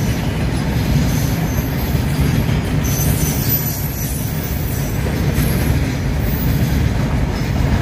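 Freight train's covered wagons rolling past close by: a steady, loud rumble of wheels on rail, with faint high-pitched wheel squeal coming and going.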